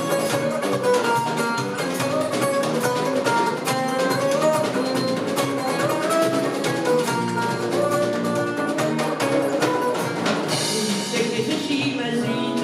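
A small live jazz band plays an instrumental passage of a song on electric bass guitar and drum kit, with no singing. About ten seconds in, cymbals come in louder.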